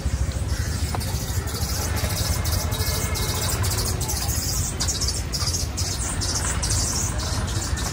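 Busy city road traffic: engines of cars and auto-rickshaws running steadily under a heavy low rumble.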